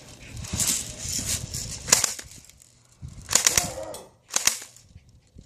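Airsoft guns firing: a single sharp snap about two seconds in, then two short bursts of snapping shots a second apart.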